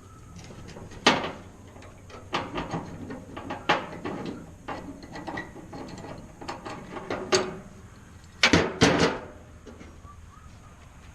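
Metal parts and tools knocking and rattling as they are handled on a workbench: a string of sharp clanks with two loud knocks close together near the end.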